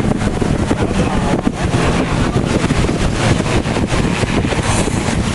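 Wind buffeting the microphone: a loud, steady rumble with irregular gusty crackle and no clear tone.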